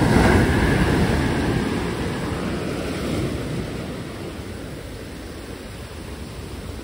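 Heavy ocean surf breaking on the beach, loud at first and fading as the foamy wash runs up the sand.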